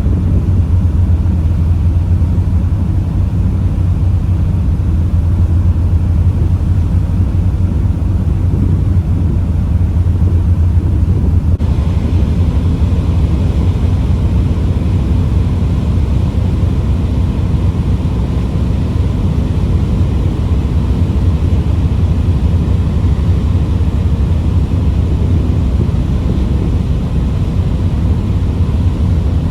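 Steady low rumble of a car ferry's engines and hull under way, heard from aboard the ship.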